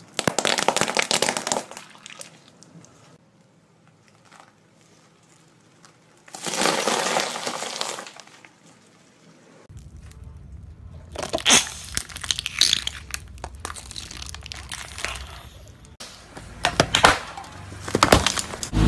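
A car tyre rolling over and crushing paintballs and plastic containers. There is a burst of crackling near the start and another about six seconds in. From about ten seconds on comes a run of sharp cracks and snaps.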